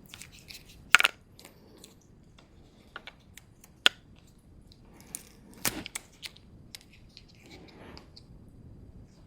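Hand tools and wiring being handled during a wiring repair: scattered sharp clicks and knocks, the loudest about a second in and just before four seconds, with a short clatter a little after five and a half seconds.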